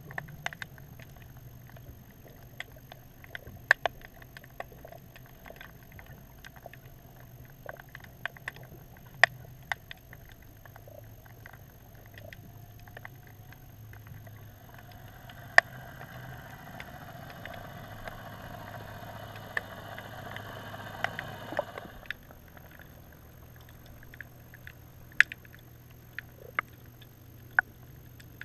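Underwater sound picked up by a GoPro in its waterproof housing: a steady low hum with scattered sharp clicks. About halfway in, a boat motor's whine rises slightly in pitch, then cuts off abruptly.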